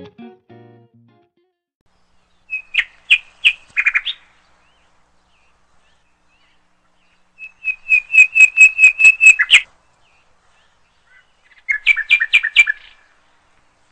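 A songbird singing three short phrases of quick repeated chirps, several seconds apart; the middle phrase is the longest, about a dozen notes. The tail of plucked-guitar music fades out in the first second.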